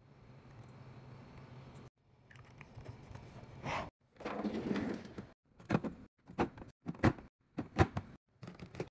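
Refrigerator drawer pulled open with a sliding rush, then a quick run of sharp knocks and clicks as capped plastic bottles are set down against each other in the drawer.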